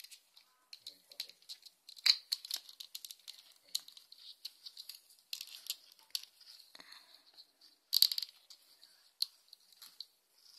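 Small plastic toy figures and a clear plastic display stand being handled: a run of light plastic clicks, taps and rattles, sharpest about two seconds in and again about eight seconds in.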